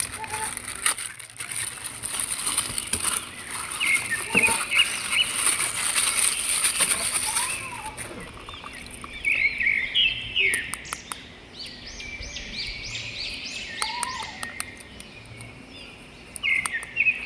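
Birds chirping in short repeated calls over a high steady hiss that stops about halfway through, with scattered sharp clicks.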